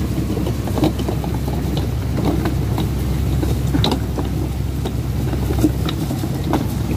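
A purse-seine fishing boat's engine running steadily under way, with water rushing along the hull and scattered light clicks and knocks over it.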